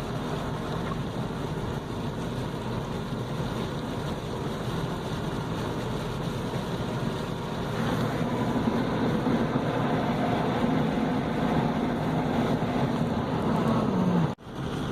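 Road noise heard while driving: a steady rumble of tyres, engine and wind, with a low hum that grows louder about halfway through and sags just before the sound breaks off abruptly near the end.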